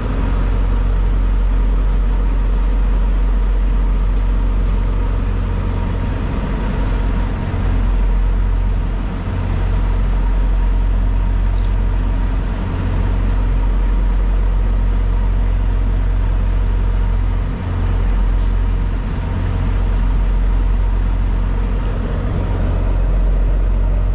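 A semi truck running with a steady low engine drone, which dips briefly twice.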